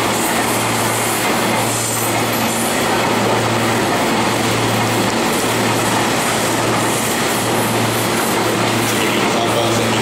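Meitetsu 2200 series electric train standing at the platform, its onboard equipment giving a steady low hum over a constant station noise.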